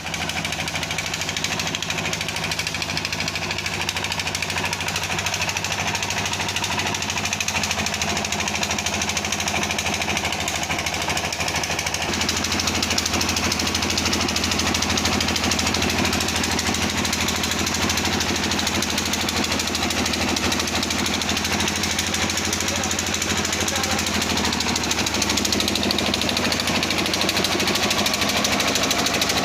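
Hyundai washing machine running with a steady hum and a dense, rapid mechanical rattle. The hum shifts in pitch about twelve seconds in.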